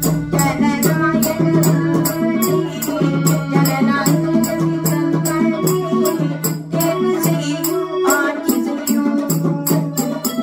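A woman singing a Tamil folk song over sustained melodic accompaniment notes that step between pitches, with a steady, quick percussion beat of about four strokes a second.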